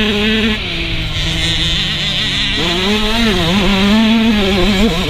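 Motocross bike engine heard from the rider's helmet, easing off about half a second in and running at a lower, steady pitch, then revving up again around two and a half seconds in and rising and falling with the throttle, with wind rushing over the microphone.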